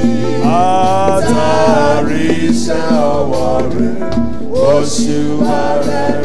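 Live gospel worship music from a church band, keyboard and drums, with a man singing drawn-out, gliding phrases into a microphone.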